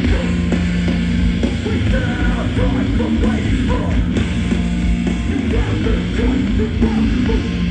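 A hardcore band playing live, loud and dense: distorted electric guitars, bass and drums with no break.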